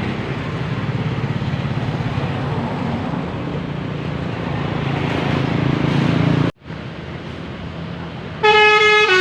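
A bus's diesel engine runs and grows louder as it comes by, then cuts off abruptly. Near the end a loud 'telolet basuri' multi-tone bus horn starts up, stepping between notes in a short tune.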